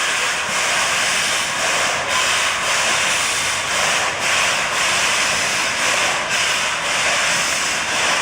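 Steady hissing noise with a faint high tone held through most of it, from the standing steam locomotive's steam or from heavy rain.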